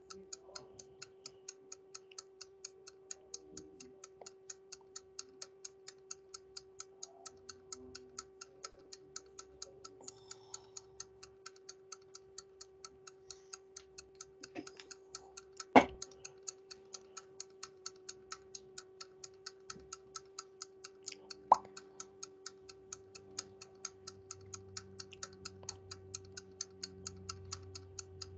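Steady, quick ticking, about four ticks a second, over a faint steady hum, with a few louder single clicks, one about halfway through and another a little later.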